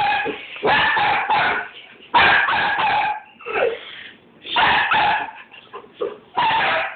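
Border Collies barking and yapping in quick, loud runs with short pauses between, agitated at a car outside.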